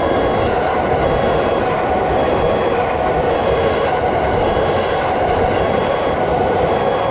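Railroad crossing warning alarm ringing in two alternating pitches, about two tones a second, over the steady noise of a passing train.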